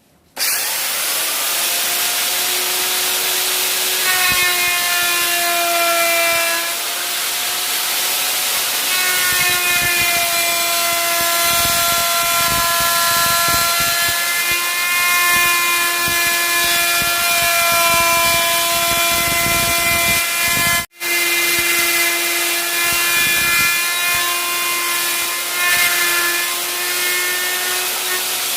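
Large electric wood router running and cutting into a wooden name board to recess the background. A steady high whine wavers slightly in pitch as the bit loads in the wood. It starts abruptly and cuts out for an instant about two-thirds of the way through.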